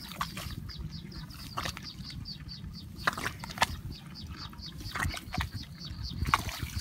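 A hand digging into the wet mud of a crab hole, with several sharp squelches as it is pulled and pushed through the mud. A rapid high-pitched chirping repeats several times a second behind it.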